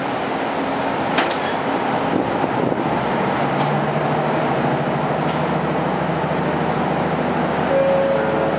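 Diesel railcar running on the line, heard from inside: a steady rumble of wheels and engine with a few sharp clicks. From about three seconds in, a steady engine hum joins, and a brief high tone sounds near the end.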